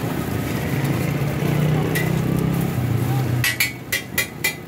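Metal spatula striking a large flat steel griddle (tawa): one ringing clink about halfway through, then, near the end, a fast even run of sharp ringing clinks, about five a second. Under it, a steady low rumble of voices and background noise.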